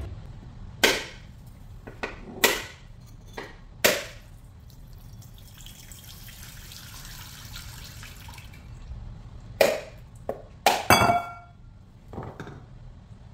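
A small hammer striking a whole coconut to crack it open: sharp knocks, five in the first few seconds and another cluster near the end, one of which rings briefly. Between the two clusters, coconut water runs and splashes faintly into a bowl.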